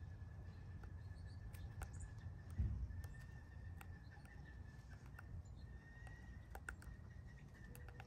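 Faint, irregular taps of a downy woodpecker's bill pecking at a suet cake in a wire-cage feeder, over a low steady rumble. A dull thump about two and a half seconds in is the loudest sound.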